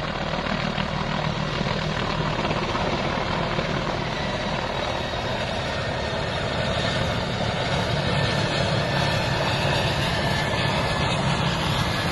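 Mi-171A2 helicopter flying low overhead, its twin turbine engines and main rotor making a steady loud drone that grows a little louder in the second half as it comes down near the ground.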